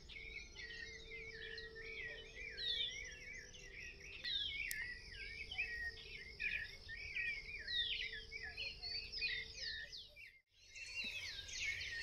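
Dawn chorus: many birds chirping and calling over one another in quick, overlapping phrases, briefly cut off about ten seconds in.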